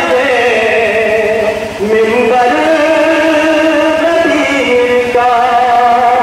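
A man's solo voice singing a devotional manqabat in Urdu into a microphone, holding long notes with melodic turns and taking a short breath about a second and a half in.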